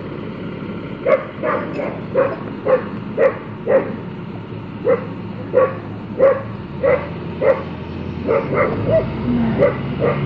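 Dogs barking in a long run of single barks, about two a second, starting about a second in. A school bus engine rumbles low behind them, louder near the end.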